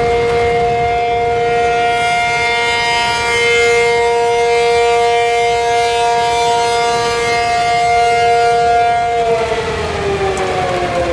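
ACA Penetrator 50 (P-50) outdoor tornado warning siren sounding a loud, steady two-note chord. About nine seconds in, both notes begin to slide down in pitch as the siren starts to wind down.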